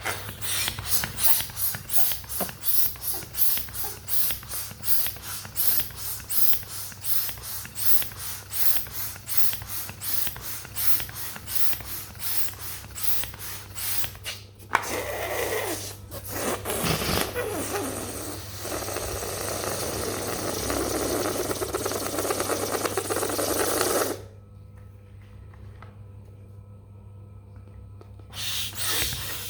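A mass of mini balloons being handled: rhythmic swishing strokes, about three a second, for roughly the first half. Then a steady rushing sound lasts several seconds and cuts off suddenly, and starts again near the end.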